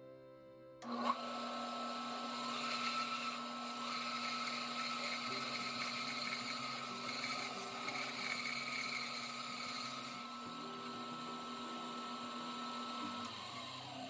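Bandsaw switched on about a second in and running while it cuts through a wooden carving blank, a steady machine hum with hiss from the cut. Near the end it is switched off, and its pitch falls as the blade winds down.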